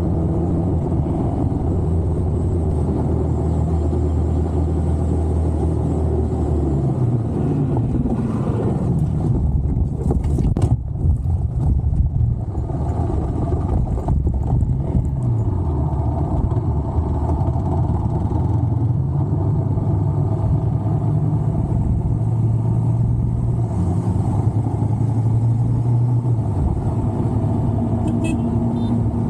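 Dual-sport motorcycle engine running under way, its pitch falling and rising repeatedly as the throttle and gears change through the bends. A few short knocks come about ten to twelve seconds in.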